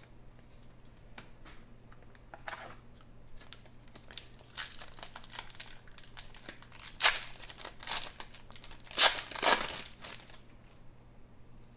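A 1992-93 Skybox basketball card pack's foil wrapper being torn open and crinkled by hand, with the loudest crackles about seven and nine seconds in.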